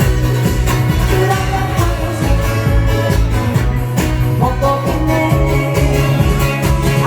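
Loud music with a steady beat and a singing voice: a song played over a backing track.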